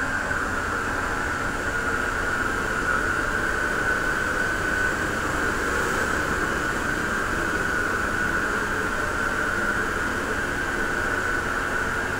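Vacuum cleaner running steadily, its motor giving a high, even whine over a rush of air.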